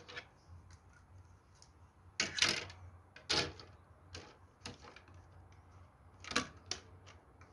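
Light, irregular clicks and clacks of 3D-printed plastic model parts, a shed's truss frame and side wall, being handled and set against each other on a table, loudest in short clusters about two and a half and six and a half seconds in.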